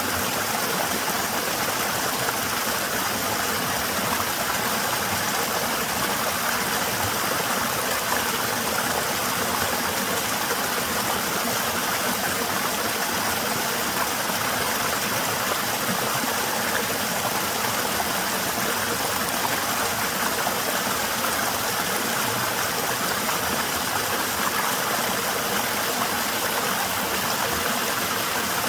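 Small waterfall with a somewhat low flow: falling water making a steady, even rush.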